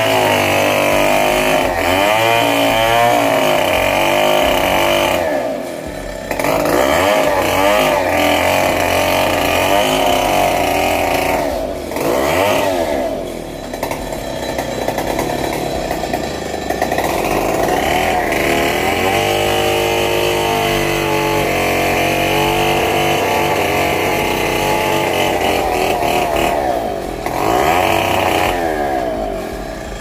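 Two-stroke chainsaw running at high revs, cutting through the branches of a fallen teak tree. The engine note drops back briefly a few times between cuts and then picks up again.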